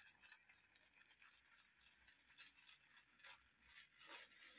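Faint, scratchy swishing of a badger-hair shaving brush worked around a bowl of shaving soap lather, in a run of short irregular strokes, loading the brush for the next pass.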